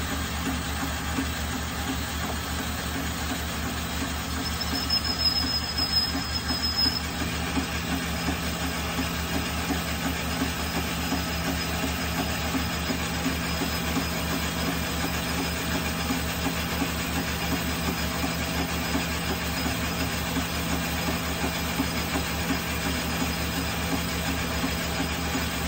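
Manual Logan metal lathe running steadily with its chuck spinning, while a boring bar turns a brass tenon. A thin high whine comes in about four seconds in, loudest for a couple of seconds, then carries on faintly.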